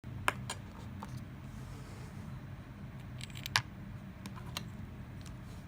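A few sharp small clicks and taps of handling, two near the start and a louder cluster about three and a half seconds in, over a steady low hum.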